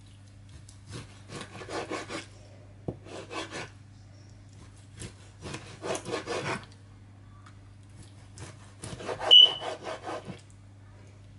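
Kitchen knife sawing through raw chicken breast on a cutting board, in four bursts of quick back-and-forth strokes with the blade rubbing on the board. A short high squeak comes about nine seconds in, the loudest moment.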